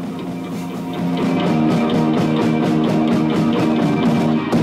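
Punk-rock band playing: guitar chords over drums, with a fast, even cymbal beat of about six strokes a second coming in about a second in.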